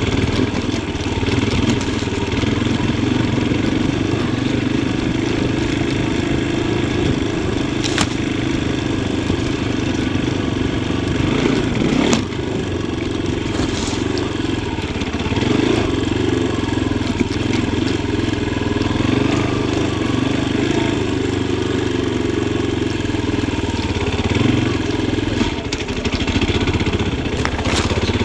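Yamaha Tricker XG250's single-cylinder four-stroke engine running at low, changing throttle as the bike is ridden round a tight forest trail, with two sharp knocks about 8 and 12 seconds in.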